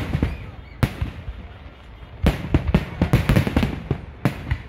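Fireworks display: aerial shells bursting with sharp bangs over a continuous low rumble. A single bang comes about a second in, then a rapid volley of bangs starts about two seconds in, with one more near the end.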